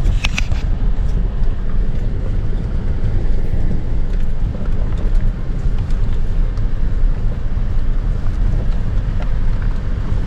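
Off-road vehicle driving along a trail: a steady low engine and tyre rumble with scattered small knocks and rattles, a cluster of them just at the start.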